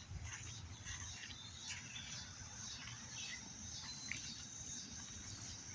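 A steady, high-pitched insect chorus with scattered short bird chirps over it, and a faint low rumble underneath.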